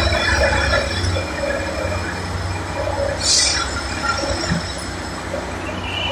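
Plasser track-maintenance machine rolling slowly along the rails with its engine running in a steady low rumble, and a short hiss about three seconds in.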